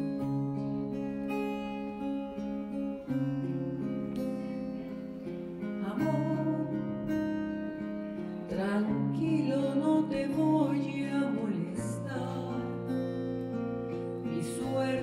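Acoustic guitar playing a slow ballad introduction, sustained chords over held bass notes; a woman's singing voice comes in about halfway through.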